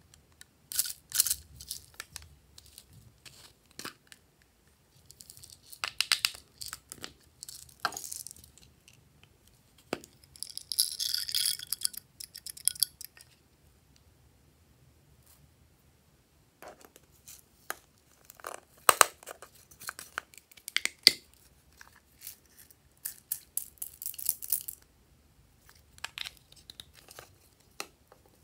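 Small plastic toy containers being handled and opened by hand: scattered sharp clicks and scrapes of plastic lids and bodies. About eleven seconds in there are a couple of seconds of dense rattling as tiny polymer-clay slices are tipped out into a palm.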